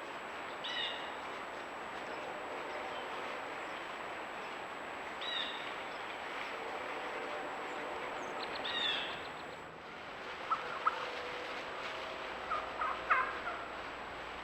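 Wild turkeys calling: three short pitched calls a few seconds apart, then a run of short sharp notes in the last few seconds, over a steady outdoor hiss.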